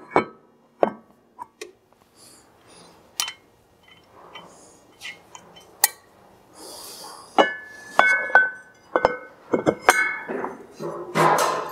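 Metal clinks and knocks from a snowmobile's Arctic Cat-type secondary clutch being slid onto its shaft and seated by hand. There are scattered light taps, then a few short ringing clanks in the second half.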